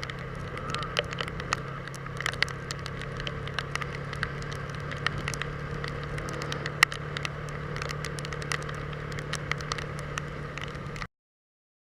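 Vehicle engine running steadily with a low hum, with many small scattered crackles and ticks over it. The sound cuts off abruptly about a second before the end.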